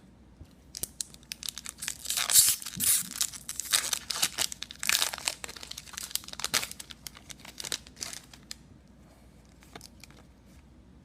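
A trading-card pack wrapper being torn open and crinkled, with a crackling rustle that comes in spurts over several seconds, loudest about two and five seconds in, then dies away.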